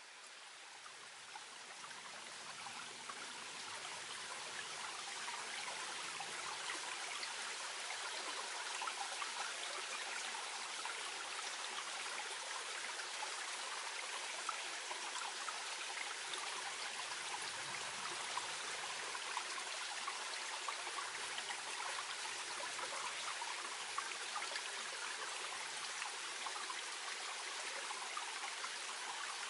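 Gentle headwater stream flowing with a steady babbling, fading in over the first few seconds and then holding level.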